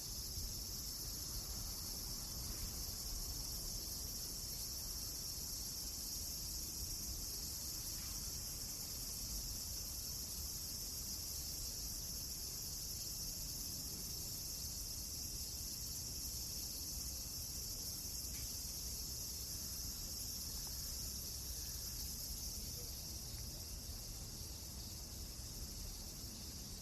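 A steady, high-pitched insect chorus like crickets chirring without pause, over a faint low rumble, with a rare soft crackle.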